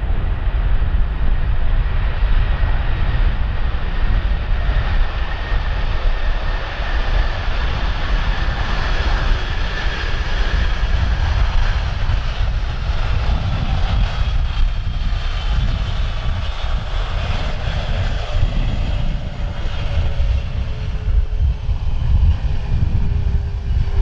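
Boeing 747 freighter's four turbofan engines at high power on its takeoff roll: a heavy, steady low rumble with whining tones that slowly fall in pitch as the jet comes closer.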